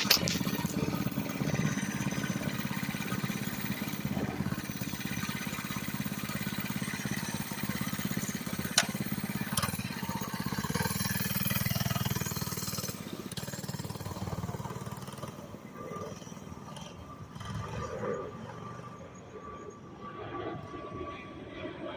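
Small single-cylinder minibike engine running steadily, swelling a little before halfway and then fading away in the second half. A sharp click comes just before it starts and another about nine seconds in.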